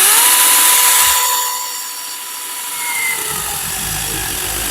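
Battery-powered mini chainsaw cutting through a dead hardwood branch: a steady electric-motor whine over the rasp of the chain in the wood. About two and a half seconds in, the whine sags and fades as the chain bites deeper, while the cutting noise goes on.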